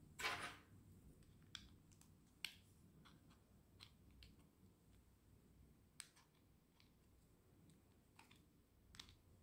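Faint handling noise of a plastic dash cam, its mount and cable: a short rustle or scrape just after the start, then a few small, sharp clicks and taps spread through.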